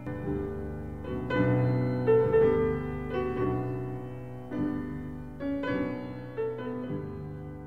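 Slow, gentle piano music, with single notes and chords struck and left to ring and fade.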